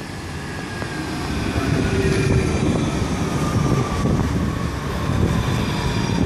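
Alstom RegioCitadis electric tram pulling in and braking alongside: wheels rumbling on the rails, growing louder over the first two seconds, with a whine from the electric drive falling steadily in pitch as it slows.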